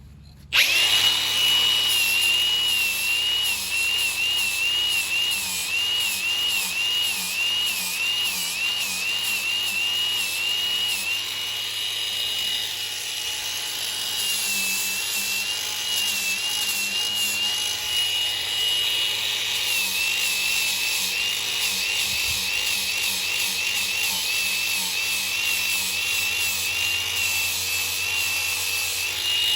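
Angle grinder with a flap disc starting up about half a second in and grinding raised rubber on a tire sidewall down flush. Its high whine dips and wavers over and over as the disc is pressed into the rubber.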